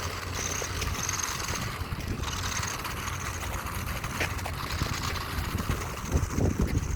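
Remote-control car running over dirt: a steady high motor whine over rough running noise, with a few louder low rumbles near the end.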